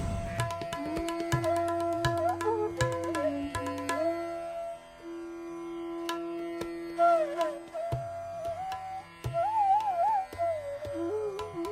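Bansuri flute playing a slow, ornamented melody in raga Bhopali over a drone, with tabla strokes beneath.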